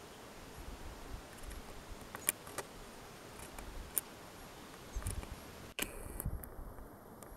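Faint outdoor background hiss broken by a few sharp clicks and brief low rumbles of wind on the microphone; the background changes abruptly about six seconds in.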